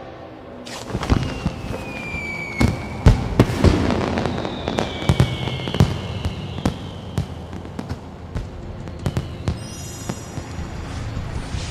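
Fireworks sound effects: a string of sharp bangs and crackles with falling rocket whistles, then a high glittering shimmer near the end.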